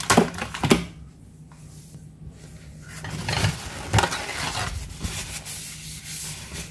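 A plastic zip-lock bag of Oreo cookies being handled and crinkled on a counter: irregular rustles with a sharper knock about four seconds in. A steady low hum sits underneath.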